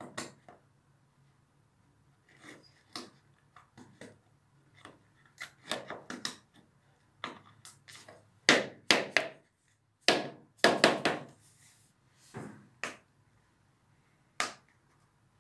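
A canister being handled, giving a string of irregular taps and knocks, some in quick clusters, loudest in the middle and latter part.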